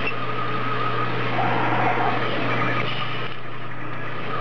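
Elrod Machine Route 66 Taskmaster CNC knee mill with a small end mill cutting aluminium plate: steady machining noise over a low hum, with a faint steady whine.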